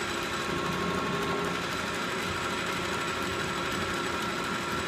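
South Bend 480RN 9-inch flat-belt lathe running steadily at a slower speed under its electric motor, with the power-feed clutch engaged.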